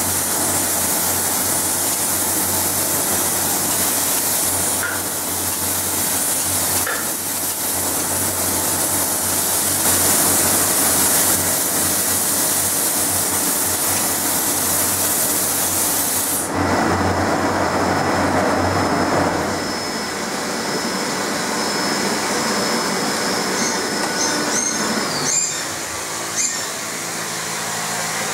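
Compressed-air spray gun hissing steadily as it sprays a finish onto polyurethane armour pieces. The hiss cuts off sharply about two-thirds of the way in, leaving a lower rushing noise and then a thin steady whine.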